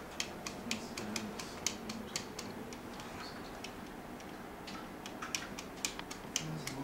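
Computer keyboard keys clicking as someone types, several keystrokes a second, with a pause of about a second and a half midway.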